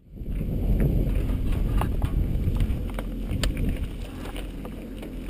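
Wind buffeting an action camera's microphone as a steady low rumble, with a few sharp clicks and knocks from the bikes and gear being handled, the loudest about three and a half seconds in.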